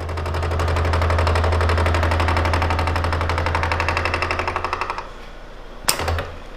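A milling machine's boring head turning a single-point tool bit through a cast iron part's bore that was brazed with silicon bronze. It cuts with a low hum and a fast, even pulsing, because the tool is striking hard spots where iron blended into the bronze weld. The cut stops about five seconds in, followed by a sharp click and a knock.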